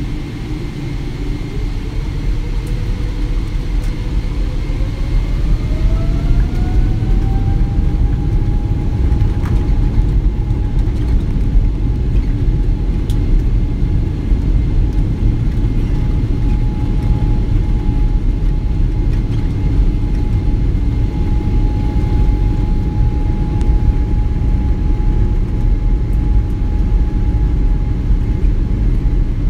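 Boeing 787 Dreamliner engines heard from inside the cabin, spooling up for the takeoff roll: a whine rises in pitch for the first several seconds and then holds steady over a loud rumble that grows and then stays level.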